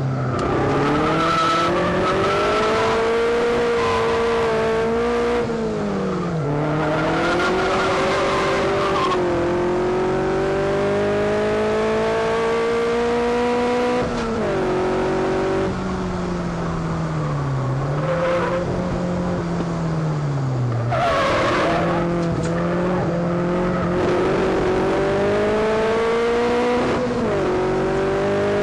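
Silva Stryker kit car's engine under racing load, heard from the open cockpit: the note climbs slowly through each gear and drops sharply at each change or lift, several times, with a few short bursts of tyre squeal. The car is running with a serious misfire, which the driver puts down to carburation trouble from a faulty fuel pump.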